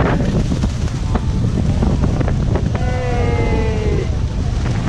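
Wind buffeting the microphone over a steady rush of wind and water. About three seconds in, a person's voice calls out in one long, slightly falling tone for about a second.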